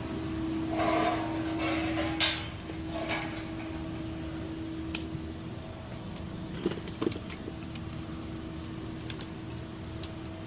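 Commercial refrigerator's compressor and condenser fan running with a steady hum and vibration that could come from either the fan or the compressor. A few brief rustles of handling in the first couple of seconds and two short clicks a little past the middle.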